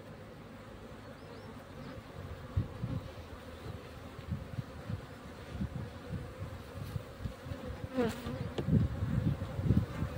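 Honeybees buzzing in a steady hum around an opened hive frame. A bee flies close past the microphone about eight seconds in, its pitch falling. Irregular low thumps on the microphone start a couple of seconds in.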